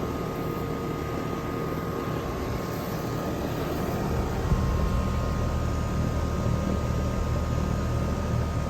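Rheem 3-ton single-stage central air conditioner condensing unit running: a steady fan whoosh over a low compressor hum, with a faint steady whine on top. The low hum gets louder about four seconds in.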